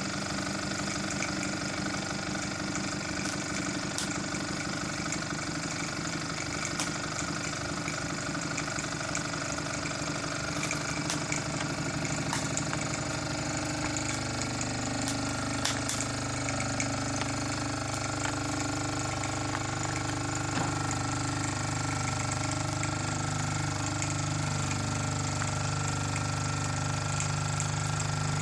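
Mersey 52 toy steam engine running fast with rapid, even exhaust beats; about halfway through the beats blend into a steadier hum. It is running smoothly, its leaks soldered and its cylinder cleaned out.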